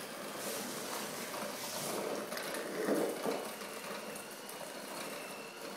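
Electric hand mixer running with its beaters in a stainless steel bowl of batter: a steady motor whir with a faint high whine.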